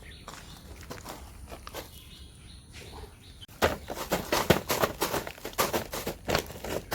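Rustling and crunching of soil and fertiliser being mixed by hand in a grow bag. It is faint at first, then louder and busier from about halfway in, with many quick irregular crackles.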